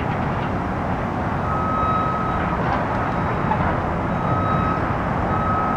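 A construction vehicle's reversing alarm beeping, three single-tone beeps starting about a second and a half in, over a steady rumble of engines and traffic.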